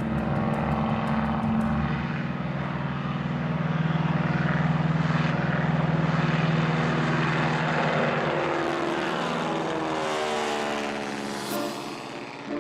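Piston engine and propeller of a restored 1928 Boeing mail plane running steadily in flight. In the last few seconds the pitch shifts and the sound fades as the plane passes by.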